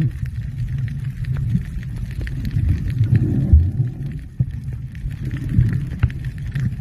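Muffled underwater rumble picked up by a camera in a waterproof housing, with scattered small clicks and knocks. The sound swells and fades unevenly.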